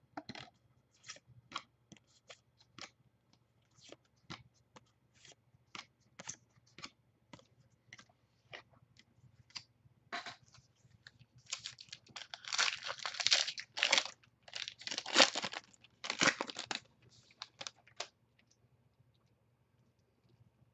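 Baseball cards flicked through one by one, each giving a short sharp click, about two a second. About twelve seconds in, a pack wrapper is torn open, with a loud run of tearing and crinkling lasting about five seconds.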